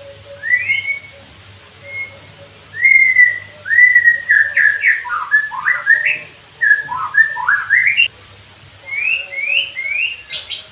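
White-rumped shama singing: a run of clear whistled phrases with rising and falling slurs, some notes quickly sweeping down and back up in the middle, then a short pause and a few short rising whistles near the end.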